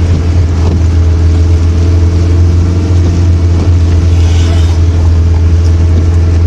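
Truck engine running steadily under a light load, heard from inside the cab as a loud, even low drone. A brief hiss rises over it about four seconds in.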